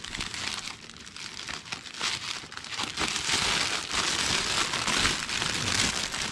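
Plastic wrapping on a gift basket crinkling as it is handled, louder from about three seconds in.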